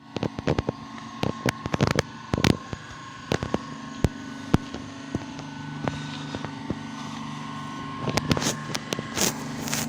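A car engine idling steadily, with many sharp clicks and knocks over it, clustered early on and again near the end.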